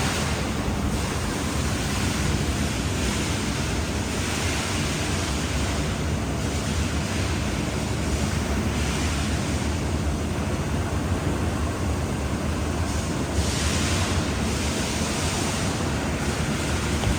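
Steady machine-shop background noise: a low hum under a rushing hiss that swells and fades every few seconds, like wind on the microphone.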